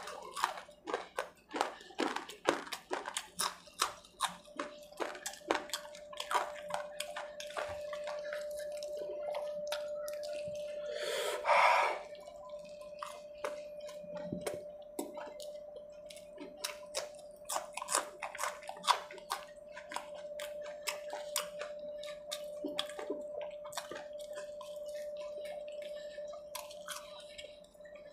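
Close-miked wet chewing and lip-smacking of a person eating fried samosas, pakoras and green chillies with the fingers: many quick smacks and clicks, with a louder noisy burst about twelve seconds in, over a steady faint hum.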